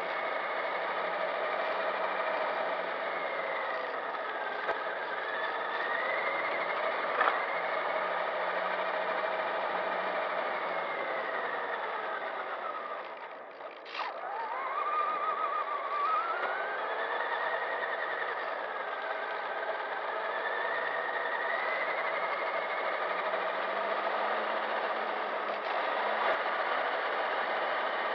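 Electric RC truck's motor and gear drivetrain whining as it drives, the pitch rising and falling with speed. About halfway through it slows almost to a stop, then the whine climbs again as it speeds back up.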